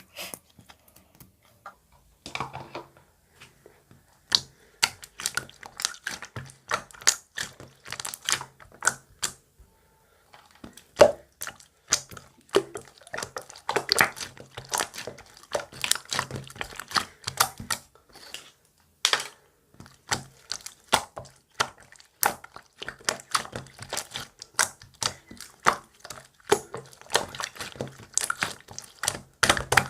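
Marbled slime being pressed, poked and squeezed by hand, a dense, irregular run of sticky clicks and pops, with brief pauses about a second in and around ten seconds in.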